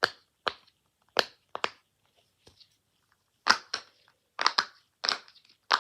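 Silicone Pop It fidget bubbles being pressed, giving an uneven run of sharp little pops, some in quick pairs, with a short lull partway through.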